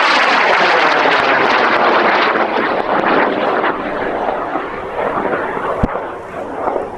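Aerotech K250 White Lightning long-burn rocket motor burning as the high-power rocket climbs: a loud, steady rushing noise that fades gradually over the last few seconds. A single sharp knock about six seconds in.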